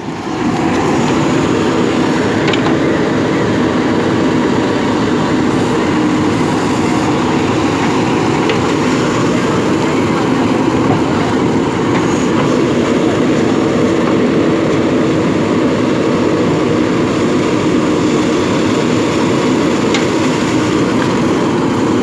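JCB backhoe loader's diesel engine running steadily under load while the backhoe arm digs.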